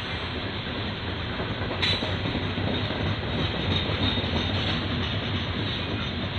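Loaded coal hopper cars rolling past on steel wheels: a steady rumble of wheels on rail, with one sharp clack a little under two seconds in and a faint high wheel squeal around the middle.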